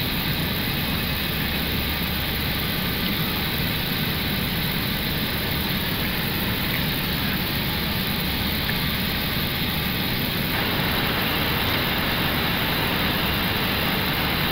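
Steady rush of airflow and engine noise in the cockpit of an Airbus A321 climbing after takeoff, with a slight change in tone about ten seconds in.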